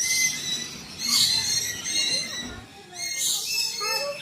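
Many birds chirping and whistling together, a dense overlapping chorus of short high calls, with a few lower gliding calls near the end.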